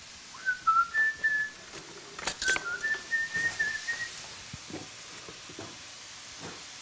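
A person whistling a few notes of a tune in two short phrases, with a couple of sharp clicks about two and a half seconds in.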